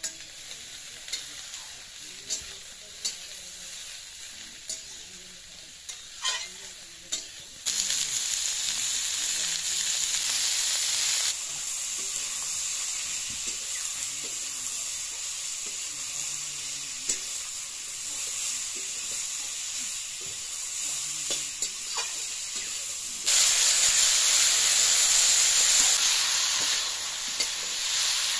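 Data shak (amaranth stalks) sizzling as they are stir-fried in an iron wok over a wood fire, with a metal spatula scraping and tapping against the pan. The taps come mostly in the first quarter; the sizzle jumps suddenly louder about a third of the way in and again near the end.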